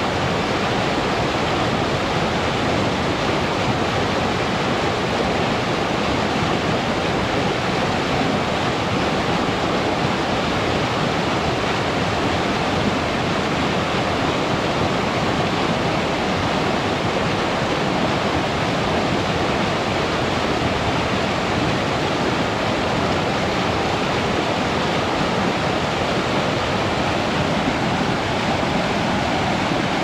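Flowing river water rushing steadily and evenly.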